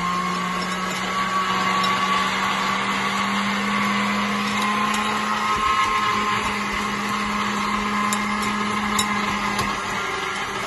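Electric kitchen blender running steadily at speed, grinding oats.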